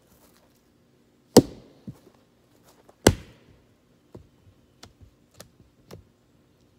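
Hatchet chopping firewood on a wooden chopping block: two hard chops about a second and a half apart, then four lighter knocks.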